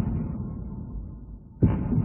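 Looped anime superpower sound effect: a deep throbbing hum that fades away, then hits again sharply near the end, repeating about every two seconds.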